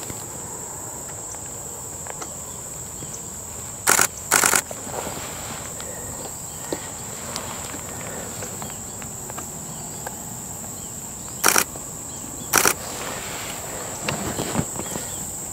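Steady high-pitched insect trill with no let-up. Four short, sharp clicking bursts stand out above it: two about half a second apart about four seconds in, and two more about a second apart later on.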